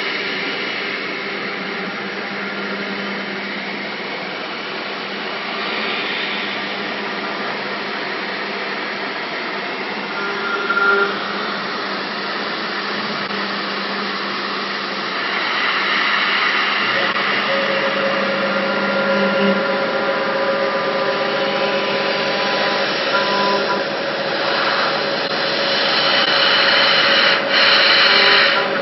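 5-axis CNC machine's spindle running while a small end mill cuts an aluminium impeller: a steady whine over the hiss of cutting, its tones shifting in pitch as the tool works along the blades, and a little louder from about halfway through.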